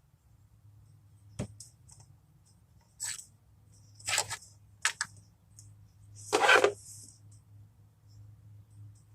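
Handling noises: a sharp click, then a few short scraping, rustling sounds, the loudest about six and a half seconds in, over a steady low hum.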